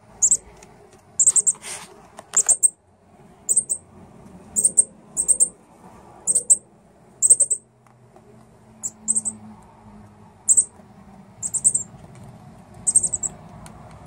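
Fledgling northern cardinals giving short, sharp, high-pitched chip calls, one at a time or in quick pairs, about one to two a second.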